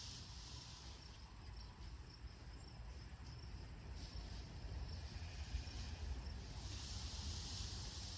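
Faint chirping of crickets over a low steady rumble.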